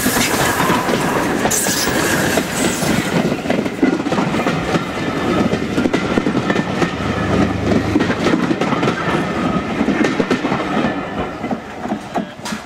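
Steam-hauled train of Mk1 coaches passing close by: hiss from the GNR Class N2 tank engine in the first few seconds, then the coach wheels clicking rapidly over the rail joints, the sound fading away near the end as the train recedes.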